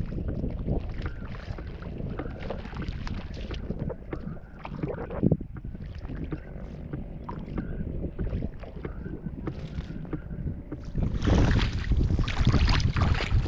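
Wind buffeting the microphone over small waves lapping at the water's edge, becoming louder and harsher about eleven seconds in.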